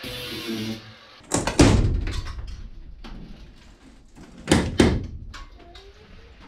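A power tool runs briefly, then two loud knocks of wood on the camper's wall framing, about a second in and again three seconds later, with a few lighter clicks after them: a rotted piece of framing being worked loose.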